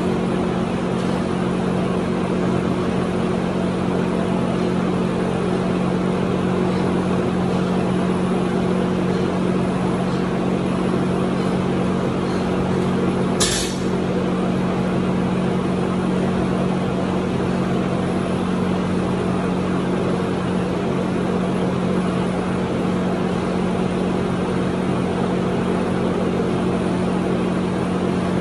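Steady machine drone with a constant low hum and an even rush over it. One sharp click comes about halfway through.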